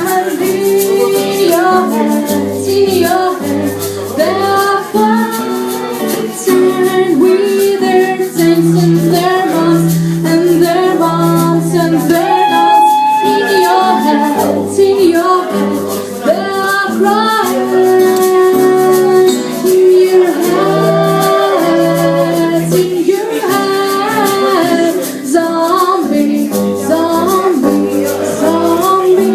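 A band playing live, with singing, bass, and a steady shaker or rattle beat.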